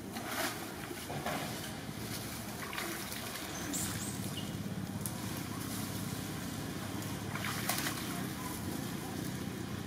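Young macaques splashing and wading in a shallow muddy puddle: a handful of brief, separate splashes over a steady low background rumble.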